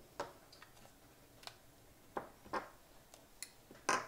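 Small plastic spring clamps being unclipped from a re-glued cassette shell and set down on a table: a string of irregular light clicks and clacks, the loudest near the end.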